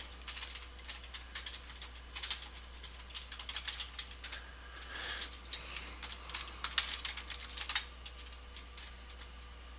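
Computer keyboard being typed on: quick runs of key clicks, thinning to a few scattered keystrokes near the end.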